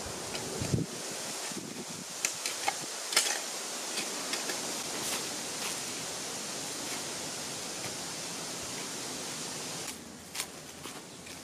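Wood campfire crackling: a steady hiss with scattered sharp pops, the whole sound dropping quieter about ten seconds in.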